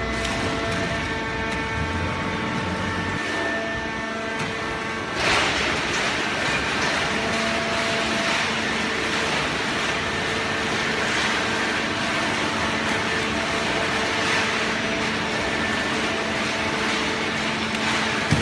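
Horizontal waste baler running: a steady hum with several held tones from its motor and hydraulic pump, joined suddenly about five seconds in by a loud hiss that carries on.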